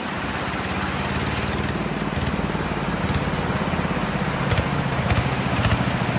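Single-cylinder engine of a two-wheel walking tractor running with a regular low beat as it pulls a trailer past, getting a little louder toward the end. Heavy rain hisses steadily on a corrugated metal roof and foliage throughout.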